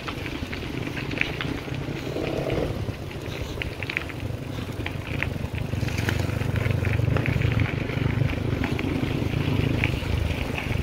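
Bicycle riding over a dirt and gravel path: a steady low rumble of wind on the microphone and rolling tyres, a little louder in the second half, with scattered short sharp ticks.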